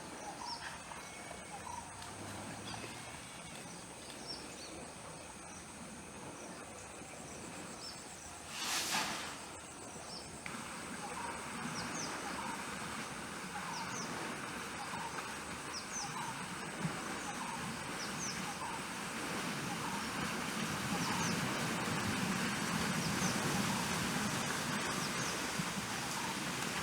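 Outdoor nature ambience: a steady high insect drone under short, repeated bird chirps. A brief loud burst of noise comes about nine seconds in, and the background noise grows louder through the second half.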